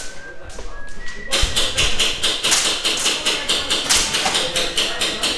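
Airsoft rifle firing on full auto: a fast, regular string of sharp pops, about ten a second, starting about a second and a half in, with background music.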